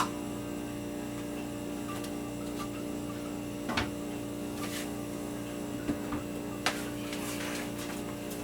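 Kitchen utensils and containers being handled, a few light knocks and clinks over a steady low hum.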